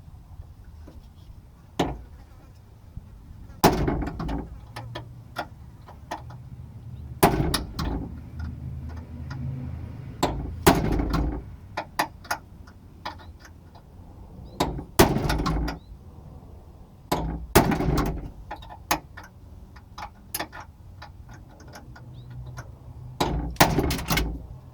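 Hammer striking a punch set against a rivet in a car door's sheet metal, a dozen or more sharp, irregularly spaced blows, some ringing briefly. The rivet is being driven out. It sits in a hollow part of the door and takes many blows.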